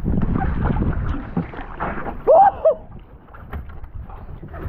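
Wind rumble and scattered knocks on a small fishing boat, with one short, loud excited shout about two and a half seconds in.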